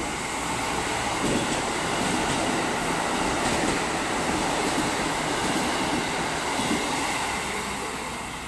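KiHa 85 series diesel multiple unit passing through the station without stopping, its diesel engines running and wheels rolling on the rails. It builds as the train comes in, is loudest for several seconds as the cars go by, and fades near the end as it draws away.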